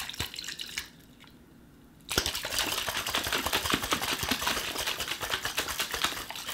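Hard-boiled egg and a little water sloshing and knocking inside a shaken glass mason jar, cracking and loosening the shell for peeling. Brief shaking at first, a pause of about a second, then about four seconds of fast, continuous shaking.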